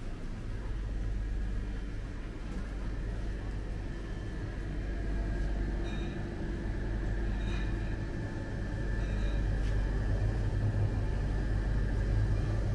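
Supermarket background: a steady low hum and rumble with a thin steady tone above it, and three faint short beeps about a second and a half apart in the middle.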